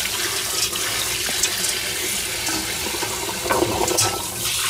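Kitchen tap running steadily onto dishes in a stainless steel sink as they are rinsed, with a few knocks of crockery near the end.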